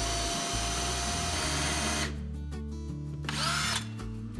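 Power drill boring through a wooden framing member to enlarge a hole that is too small for a pipe. It runs steadily, cuts off about two seconds in, then gives a shorter burst near the end.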